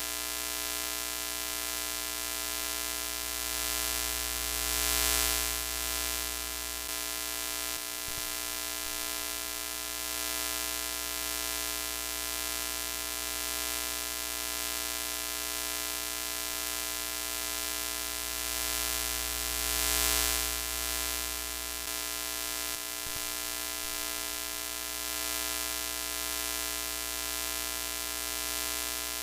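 Broken-TV sound effect: a steady electrical buzz with many overtones over a hiss of static. It swells a little about five seconds in and again about twenty seconds in.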